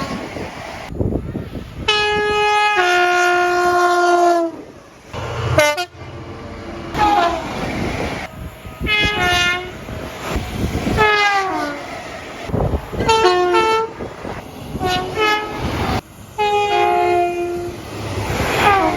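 Train horns sounding a series of blasts, in abrupt back-to-back segments. Several blasts slide down in pitch as the train passes, and a held blast about two seconds in steps down to a lower pitch and holds before stopping.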